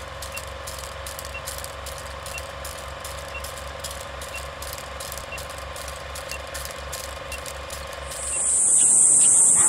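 Old film-projector clatter sound effect: rapid, even mechanical clicking over a steady hum, with a faint tick about once a second. About eight seconds in it gives way to a much louder, steady high-pitched hiss.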